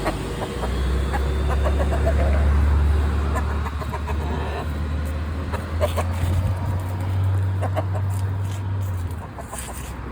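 A rooster giving short, scattered clucks, over a steady low hum that stops about nine seconds in.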